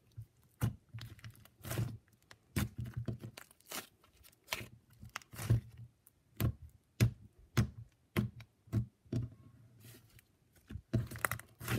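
Butter slime being poked, pressed and stretched by hand, giving off irregular crackling pops: the 'sizzles' of freshly opened slime.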